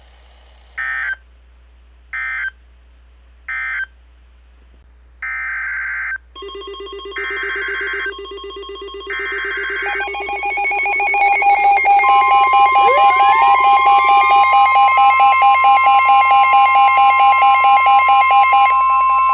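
Emergency alert data and tones. First come three short warbling digital data bursts about 1.4 seconds apart: the end-of-message code of the previous weather radio alert. Then three longer warbling bursts: the SAME header of the next alert. From about six seconds in these are overlaid by a growing stack of electronic alert tones: pulsing beeps, a steady single-pitch warning tone and a tone that rises like a siren winding up. They are loud until shortly before the end.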